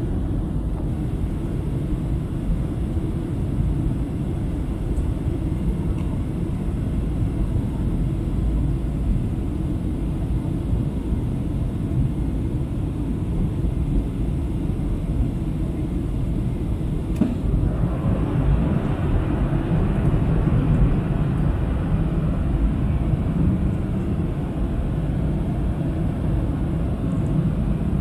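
Steady low rumble of engine and airflow noise inside a Boeing 737-700's cabin in flight. About two-thirds of the way through, a faint click is followed by a louder, hissier rush of air that stays to the end.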